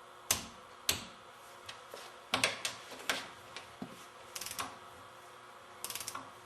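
Clicker torque wrench working cap bolts to 125 inch-pounds: several sharp single clicks, then two short runs of rapid ratchet ticks near the end.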